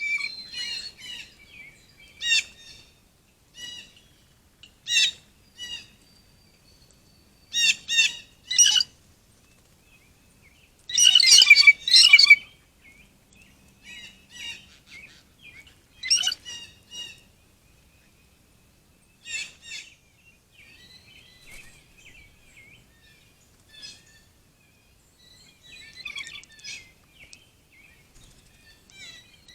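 Wild birds chirping: scattered short, high calls throughout, with a loud dense flurry of chirps about eleven seconds in.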